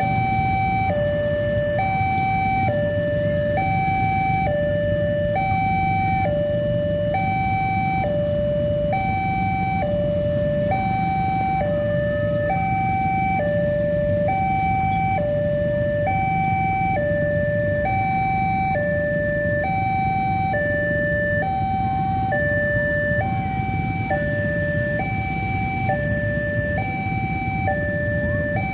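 Railway level-crossing warning siren sounding an electronic two-tone hi-lo alarm, switching evenly between a higher and a lower note a little under once a second, over a steady low rumble.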